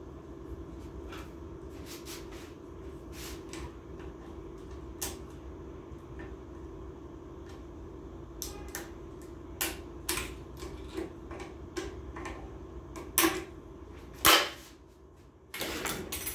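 Sharp metal clicks and clanks from a hand-lever shop press and an automatic-transmission clutch drum being worked under it, over a steady hum. The two loudest knocks come about 13 and 14 seconds in, then a short rattle near the end.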